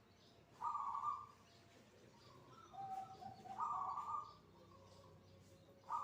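Zebra dove (perkutut) cooing in separate phrases: a short coo about half a second in, a longer multi-note coo around the middle, and another starting at the end.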